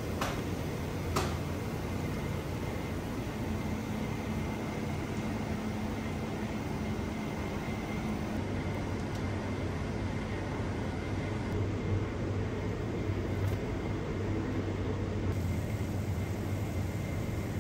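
Steady low hum and hiss of kitchen equipment running, with a couple of light clicks in the first second or so.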